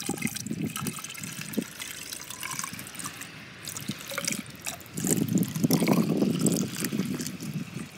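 Windshield washer fluid poured from a plastic jug into the washer reservoir's filler neck: a thin trickle at first, then a heavier, louder pour from about five seconds in.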